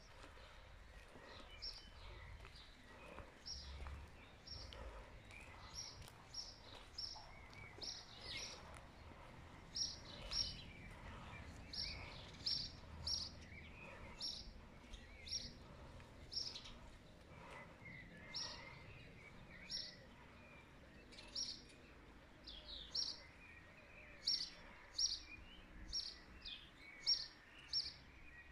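A small bird chirping over and over, short high chirps about one or two a second, getting louder near the end, over a faint low background rumble.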